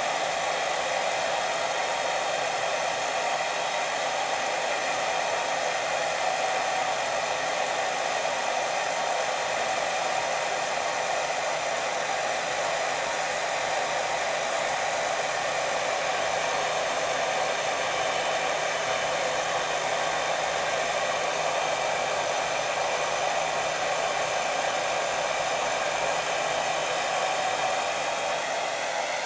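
Steady white noise played as a sleep sound: an even, unbroken hiss with a faint steady hum in it and no pauses or pulses.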